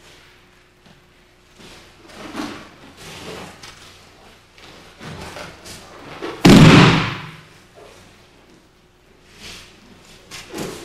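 A body slamming onto the mat in a breakfall after an aikido throw, one loud impact about six and a half seconds in. Softer thuds and rustles of feet and cotton gi come before and after it.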